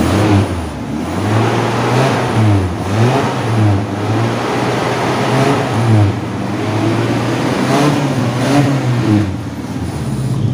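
Toyota Kijang 7K carbureted four-cylinder engine being revved repeatedly, its pitch rising and falling in a string of quick throttle blips. The revving clears out the burnt carburetor-cleaner residue left by an engine decarbon flush.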